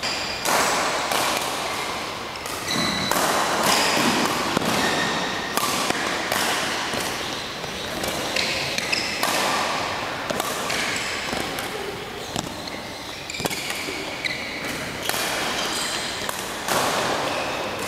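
Badminton rally: rackets striking the shuttlecock back and forth with irregular sharp hits, mixed with the players' quick footwork on the court mat.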